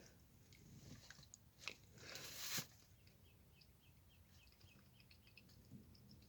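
Near-silent outdoor ambience. About two seconds in there is a click and then a brief rustling burst. After it comes a faint run of short, high chirps, several a second, which fade out before the end.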